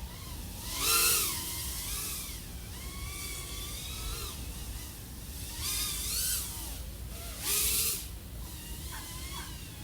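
iFlight AOS 3.5 V5 FPV quadcopter's XING 1504 3100KV brushless motors and 3.5-inch props whining, the pitch rising and falling with the throttle. Louder punches of throttle come about a second in, near six seconds and near eight seconds.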